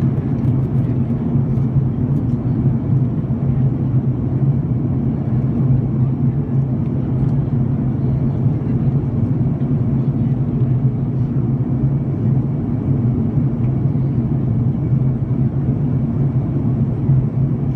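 Jet airliner cabin noise in cruise flight: a steady, unbroken low drone of engines and rushing air heard from inside the cabin.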